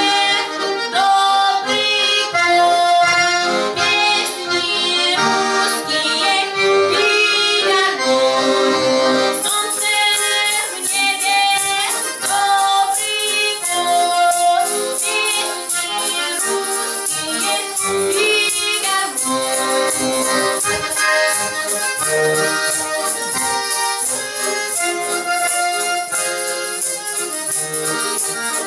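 Button accordion playing a lively folk tune while a woman sings. From about nine seconds in, a tambourine's jingles shake in a steady rhythm over it.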